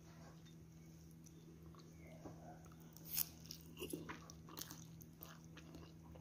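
A person slurping and chewing hot noodle soup, a few short wet mouth sounds starting about halfway through.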